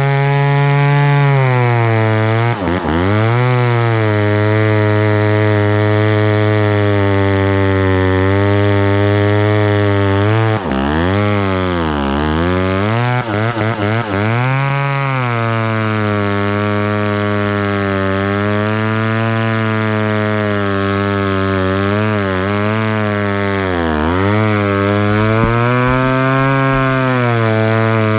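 Vintage chainsaw engine running at high revs, with its pitch dropping sharply and recovering several times, a cluster of dips around the middle and another near the end, as the saw is loaded in the cut or let off the throttle.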